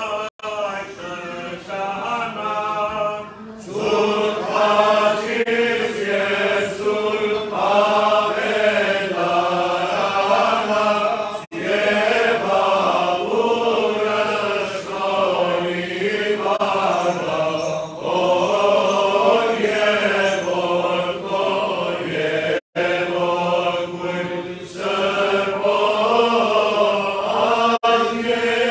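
Armenian liturgical chant sung by male clergy voices: a slow, continuous melody, broken only by a few short pauses for breath.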